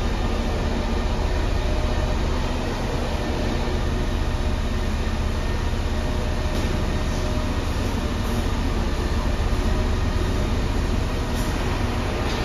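Concrete mixer truck running as it reverses slowly, a steady deep rumble echoing in a large hall.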